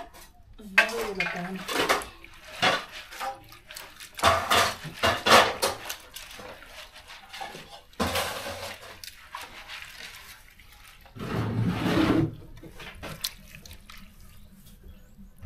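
A hand stirring and rubbing dry split pigeon peas in an aluminium basin: the grains rustle and rattle against the metal in irregular bursts. A voice speaks briefly in between.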